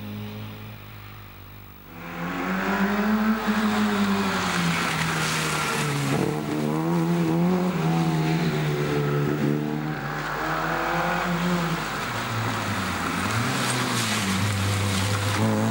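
Small four-cylinder rally hatchbacks revving hard through tight bends, one after another. The engine is fainter for about the first two seconds, then loud, its pitch climbing and dropping several times with throttle lifts and gear changes.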